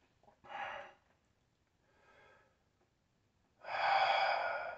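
A man's breathing: a short breath about half a second in, a faint one around two seconds, then a long, louder exhale near the end.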